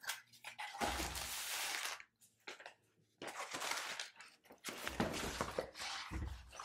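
A rolled diamond painting canvas being handled and unrolled flat on a table: stiff sheet rustling and crinkling in two long stretches, with a few soft thuds.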